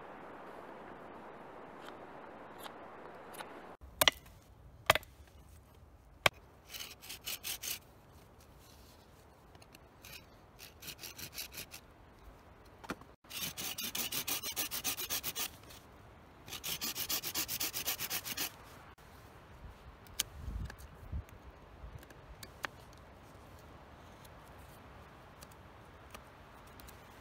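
A knife blade sawing back and forth in a notch being cut into a green wooden stick. It comes in several runs of quick rasping strokes, each run lasting one to two seconds, with a few sharp clicks between.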